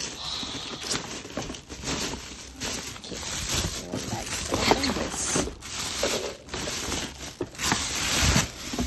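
Plastic packaging bags and wrap rustling and crinkling irregularly as hands dig through them inside a cardboard box.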